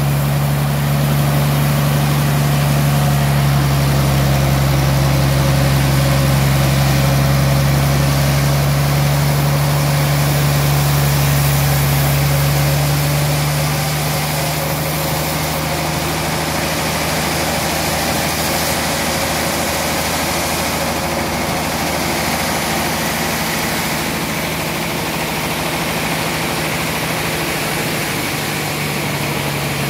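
Band sawmill running steadily: a constant low machine hum under a broad hiss, easing a little about halfway through.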